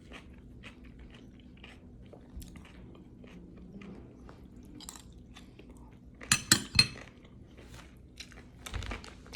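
Close-up chewing and crunching of a raw cucumber, pepper and tomato salad, with small wet clicks throughout. A few louder sharp sounds come about six and a half seconds in.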